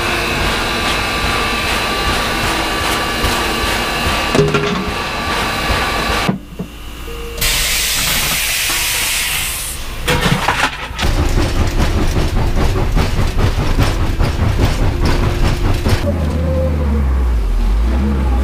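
Working steam locomotive heard across several quick cuts: a steady hiss with clatter, then a louder rushing hiss of steam from about seven to ten seconds in. After that comes dense rattling, and a deep engine rumble near the end.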